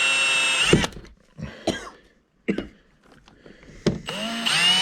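Power drill boring into the boat's fiberglass runs steadily, stops under a second in, and spins up again near the end. In between a person coughs several times, short sharp coughs with pauses between them.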